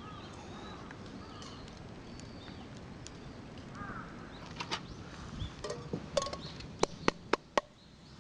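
Small birds chirping, then a quick run of sharp clicks and knocks in the second half, the loudest four coming close together near the end.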